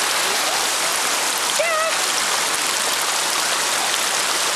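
Steady rush of a stream flowing over rock ledges. A short, high, wavering call cuts in briefly about a second and a half in.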